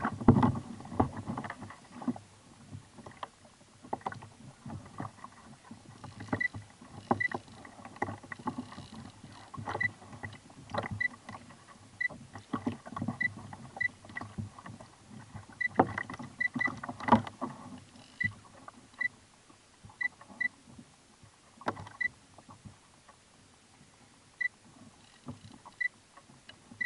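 Sea water slapping against a kayak hull, with repeated knocks and short high clicks from a spinning reel and rod being worked while fighting a fish.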